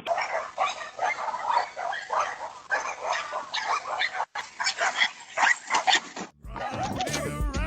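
Dog barking and yipping in quick, uneven short calls. About six and a half seconds in, the clip changes to longer calls that rise and fall in pitch.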